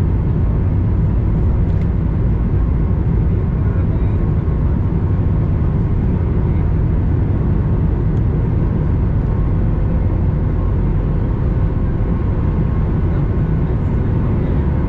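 Boeing 737 MAX 8's CFM LEAP-1B jet engines at takeoff thrust during the takeoff roll, heard inside the cabin over the wing: a loud, steady, deep rumble with a faint steady whine above it.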